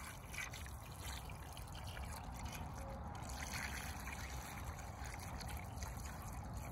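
Cold water poured in a steady trickle onto raw chicken pieces in their vinegar, salt and soy-sauce marinade.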